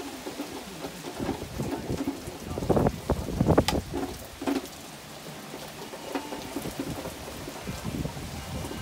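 Tropical-storm wind and rain: steady rain with gusts of wind buffeting the phone's microphone in low rumbling surges, the strongest about three to four seconds in.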